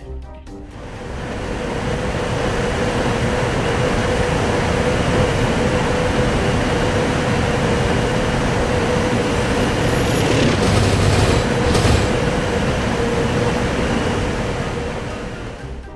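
Train passing at speed: a loud, steady rush of wheel and rail noise with a steady hum running through it, building over the first second or two and fading near the end.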